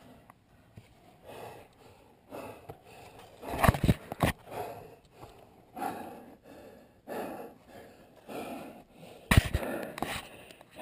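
A person breathing close to the microphone, a breath about every one to one and a half seconds, with two loud bumps against the camera or rock, about four seconds in and again near the end.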